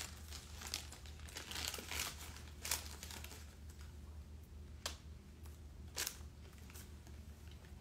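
Paper takeout bag rustling and crinkling as hands rummage through it, with several sharp crackles of the paper, over a steady low hum.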